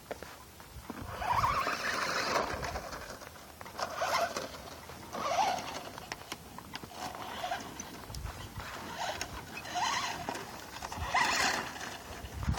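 Birds calling: a string of short calls that rise and fall in pitch, repeating every second or two.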